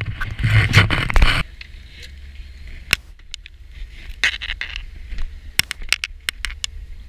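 Loud scraping and rustling close to the microphone for about the first second and a half, cutting off abruptly. Then a low steady rumble on a boat, with scattered sharp clicks and taps from handling.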